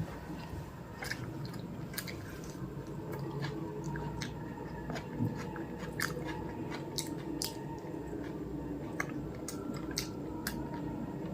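Close-miked chewing: a person eating, with small irregular wet clicks and smacks from the mouth over a steady low background hum.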